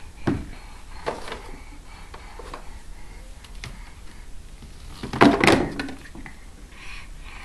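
Knocks and taps of board books being handled and pulled off a wooden shelf by a toddler, with a louder clatter about five seconds in.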